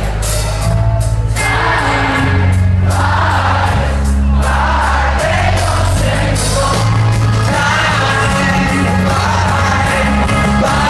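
Alternative rock band playing live through a hall PA, a sung lead vocal over held, stepping bass notes, guitars and drums with regular cymbal hits, heard from within the audience.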